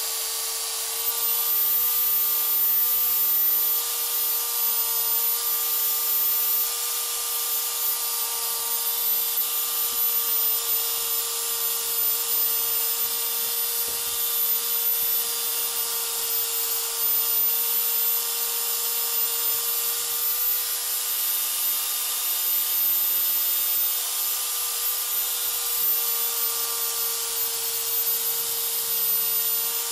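Chicago Electric finger sander, a small electric belt file, running steadily with a constant whine while its narrow belt sands carved wood, with a hiss of abrasive on wood.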